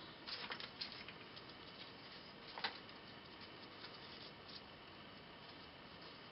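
Faint rustles and light clicks of small paper and metal craft embellishments being picked up and handled on a tabletop, mostly in the first second, with one sharper click about two and a half seconds in, then quiet room tone.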